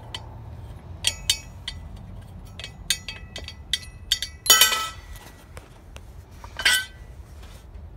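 Chrome air cleaner lid and its wing nut being worked by hand: a series of light metallic clicks and clinks that ring briefly, with two louder clanks about four and a half and six and a half seconds in.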